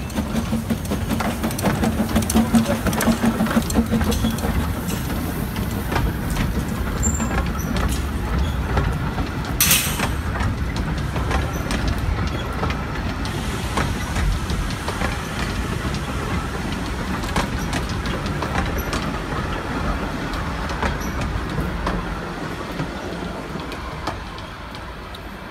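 Narrow-gauge train pulled by the Quarry Hunslet saddle-tank steam locomotive "George B" moving off and rolling past close by, its steel wheels clicking over the rail joints. There is a short hiss about ten seconds in, and the sound fades over the last few seconds as the coaches draw away.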